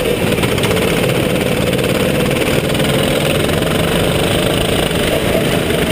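Onboard sound of a rental go-kart's engine running at speed through corners. The engine note drops slightly at the start and rises again near the end as the kart accelerates.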